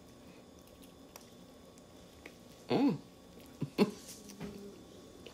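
A person chewing a bite of an Egg McMuffin with soft mouth sounds, a short hummed "mmm" that rises and falls in pitch about three seconds in, then a few sharp mouth clicks.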